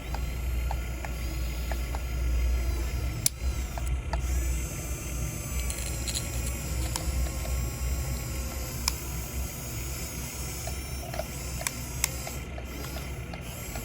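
Remote-control toy excavator's small electric motors and gears whining as it works, over a steady low hum, with a few sharp clicks.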